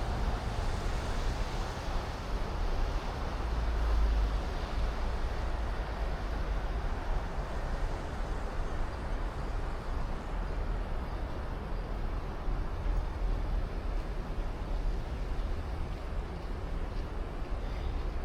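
Steady city ambience: a continuous wash of traffic noise over a deep low rumble, swelling briefly about four seconds in.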